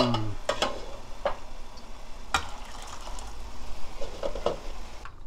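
Pot of milky beef-bone broth boiling with a steady bubbling hiss, with a few sharp clinks of a metal ladle against the pot and a glass measuring cup.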